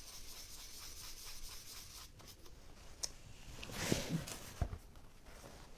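A 5/8 inch stencil brush rubbing paint through a stencil onto a wooden board: a soft, steady scratchy brushing, followed by a few light knocks and handling sounds in the second half.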